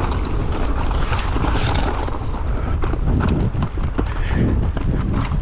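Wind buffeting the microphone over a mountain bike riding fast down a rough trail, with tyres rumbling on dirt and the bike rattling and knocking over bumps and roots.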